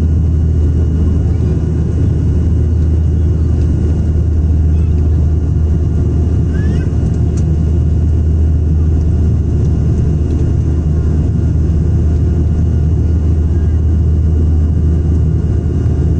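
Cabin noise of an ATR turboprop airliner in flight: a steady, loud propeller and engine drone with a strong low hum and a faint high whine.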